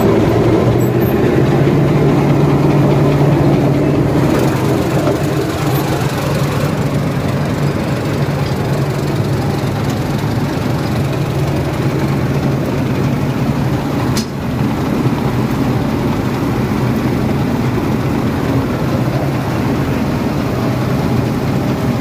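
A combine harvester's engine running steadily at working revs, a continuous heavy mechanical drone, with one brief click partway through.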